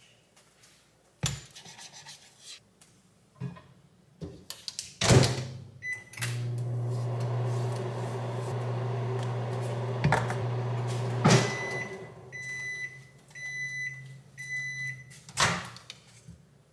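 Microwave oven heating a bowl of oatmeal. After a few knocks and a thud of the door shutting, a single beep starts it humming steadily for about five seconds. It stops with a sharp click and then beeps three times.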